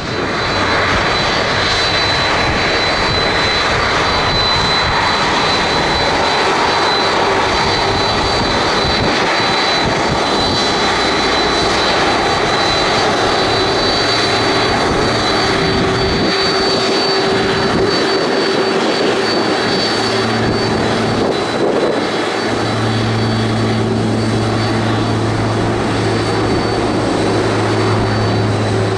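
Jet engines of a FedEx Boeing 767-300F freighter running close by: a loud, steady roar with a high whine, and a low hum that comes in about 20 seconds in.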